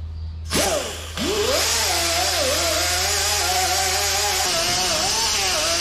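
Pneumatic die grinder blipped briefly, then spinning up about a second in and running steadily with a high whine and air hiss. Its pitch wavers and sags as it is worked over a John Deere 4010 cylinder head.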